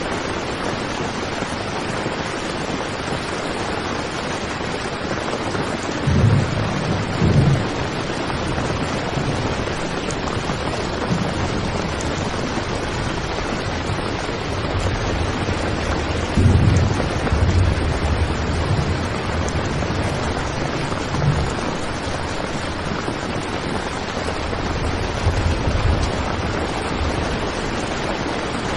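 Heavy rain falling steadily on a tent, a dense even hiss. Several short low rumbles rise over it, the strongest about six to seven seconds in and again about seventeen seconds in.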